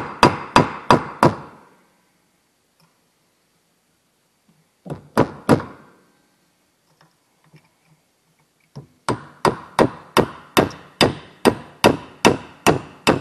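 Hammer striking a steel pin punch, metal on metal, to drive a roll pin out of a clutch hydraulic fitting held in a vise. There are four quick blows at the start, three more about five seconds in, then a steady run of about a dozen blows at roughly three a second near the end.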